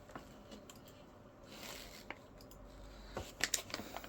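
Hands pulling open a slime-filled toy mummy capsule: faint squishing and small crinkles, getting busier in the last second.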